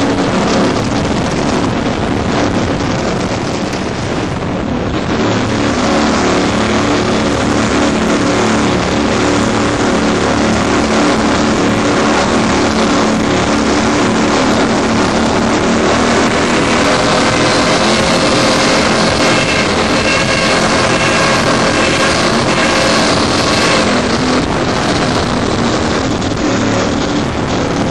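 Twin 1000 hp Paul Pfaff engines of a Cigarette Top Gun offshore powerboat running at high speed, a steady loud drone mixed with rushing spray and wind buffeting the microphone. The engine note comes through more clearly about halfway through.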